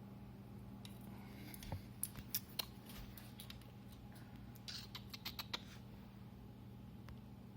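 Small pet making bursts of sharp clicks and scratches, two clusters a few seconds apart, over a steady low hum.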